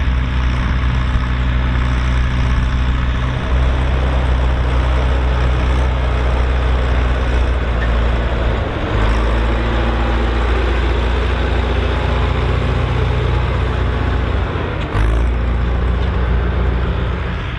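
Volvo BM 2654 tractor's diesel engine running steadily under load while pulling a plough, its note dipping briefly three times.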